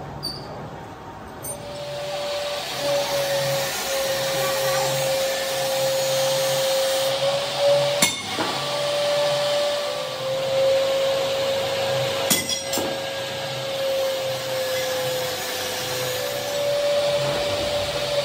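Lathe machining metal: a steady whine from the cut, wavering slightly, over a running-machine hiss, with a few sharp metallic clinks. The whine starts about a second and a half in and drops in pitch as it stops at the very end.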